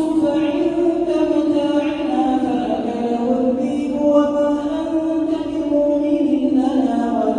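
A man's voice reciting the Quran in slow melodic chant, holding long drawn-out notes that glide gently in pitch, with a falling note near the end.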